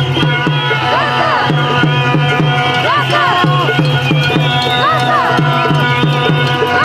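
Protest noise-making: a drum beaten in a steady rhythm, about three beats a second, under held steady tones and repeated rising-and-falling pitched glides.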